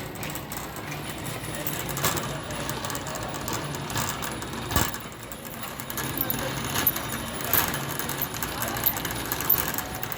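Store ambience: a steady low hum with faint background voices, broken by about five sharp clinks and knocks, the loudest about halfway through.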